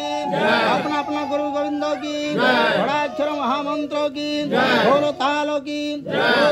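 Hindu devotional chanting, a sung phrase recurring about every two seconds over a steady held drone note.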